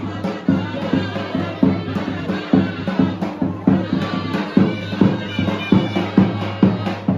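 Live folk music from a street band: a loud reed pipe over a steady drone, with a large double-headed bass drum struck about twice a second.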